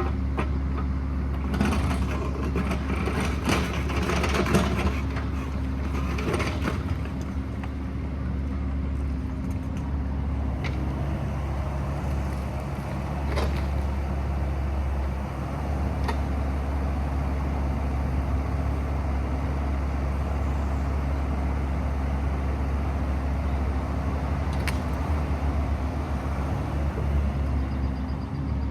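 Excavator's diesel engine running steadily, with a stretch of scraping and knocking in the first several seconds and a few single sharp clanks later.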